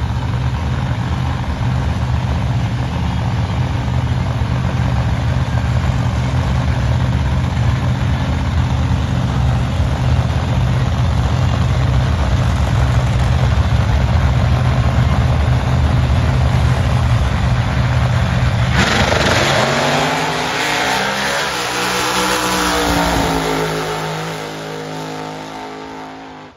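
A drag racing car's engine runs loud and steady at low revs, then about 19 seconds in it launches at full throttle. The revs climb in several rising sweeps and the sound fades as the car pulls away down the strip.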